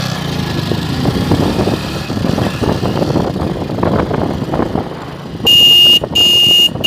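Motorcycle engine running, then its electric horn sounds two short, loud blasts and starts a third at the very end. The horn is working on a capacitor fitted in place of the battery.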